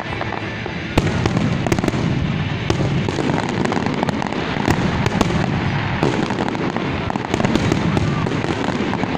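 Fireworks display: aerial shells bursting in rapid succession with sharp bangs and crackling. The barrage gets louder about a second in.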